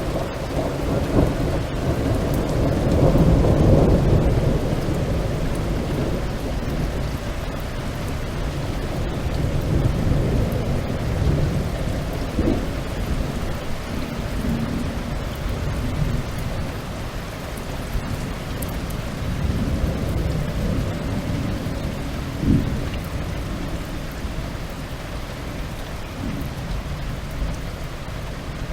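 Heavy rain pouring steadily with rolling thunder: deep rumbles swell and fade several times, with a short, sharper thunderclap about three-quarters of the way through.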